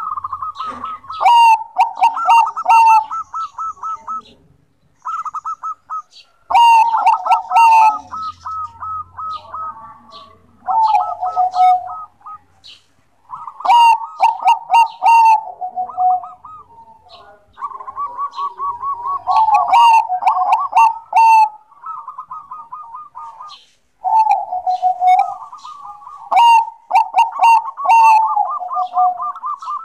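Zebra dove (Thai 'Bangkok' perkutut line) cooing: rippling, trilled coo phrases repeated again and again, the loudest about every six seconds with softer phrases between.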